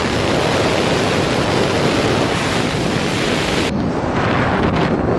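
Strong wind buffeting a microphone, a loud, even rush of noise, from a recording of a willy-willy, a small dust whirlwind. The rush turns duller near the end.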